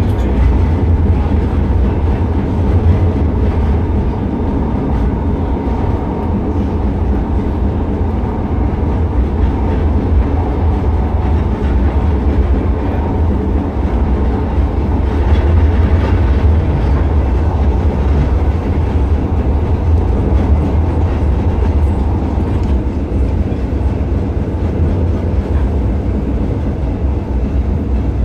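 Blackpool Balloon double-deck tram 700 running along the track, heard from inside just behind the driver's cab: a steady low rumble of the moving tram on the rails.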